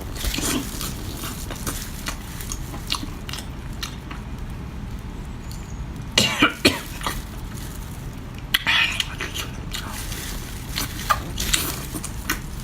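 A woman coughing in two short bouts, about six and nine seconds in, choking on wasabi-laced spicy seafood, with small mouth clicks from eating in between.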